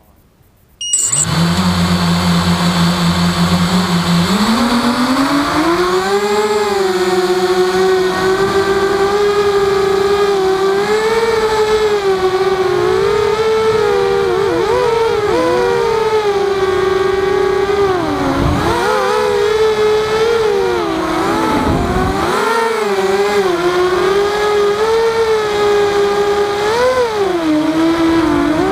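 Walkera Rodeo FPV quadcopter's motors and propellers, heard from its onboard camera. They start about a second in with a steady low hum, rise in pitch about four seconds in as the throttle comes up, then give a loud whine whose pitch bends up and down with the throttle.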